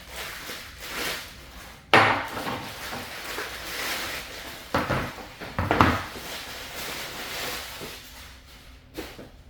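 Parts of a standing gun vise being handled and set down: a sharp knock about two seconds in and two more around five and six seconds, with rubbing and light rattling between.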